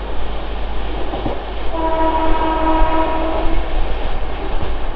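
Mumbai suburban local train running, with steady wind and track noise at the open door. A train horn sounds once about two seconds in, a single steady note lasting nearly two seconds.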